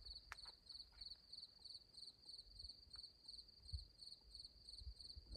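A single cricket chirping faintly and steadily, about three high chirps a second.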